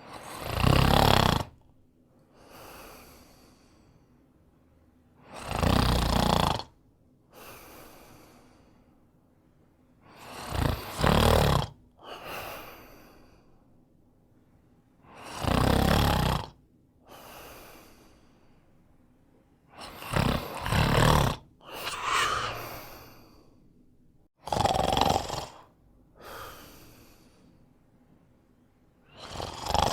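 A man snoring in a regular rhythm, about every five seconds: each loud snore is followed by a quieter breath.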